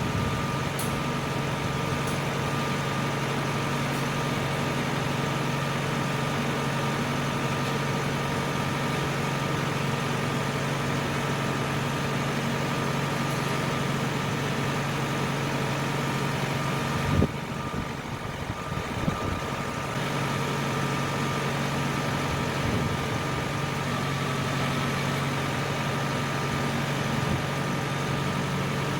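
Tractor engine running steadily. About two-thirds of the way through there is a sharp knock, then a few seconds where the sound drops and goes duller before the steady running returns.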